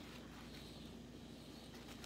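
Faint chewing of a sandwich, with a few soft clicks, over a low steady hum.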